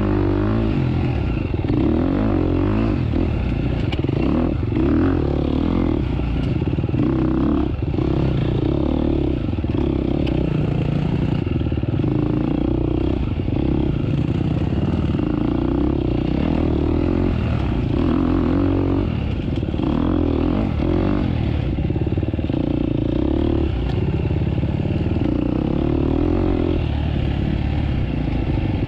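Off-road motorcycle engine running as the bike is ridden along a trail, its revs rising and falling again and again, with some rattle and clatter from the bike.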